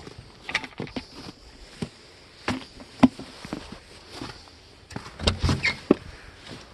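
Footsteps in snow with scattered knocks and clunks, the sharpest about three seconds in and a cluster of handling noises near the end.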